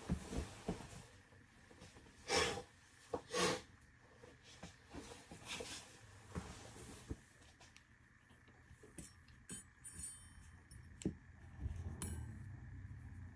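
Small steel Allen keys clinking and jingling against each other as a hand sorts through them on the mat, in the latter part. Two brief rustling handling noises come earlier.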